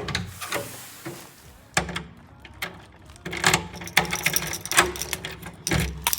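Irregular clicks, knocks and clatter of objects being handled, busiest in the second half.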